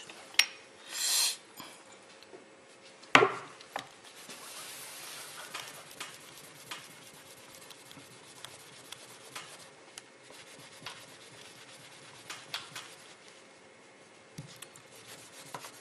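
Hands rubbing and wiping a small piece of cured GM8300 metal-filled epoxy putty with a paper towel on a workbench, polishing it to bring out a metallic shine. A soft scraping and rustling goes on throughout, with scattered light taps, a brief hiss about a second in and one sharper knock about three seconds in.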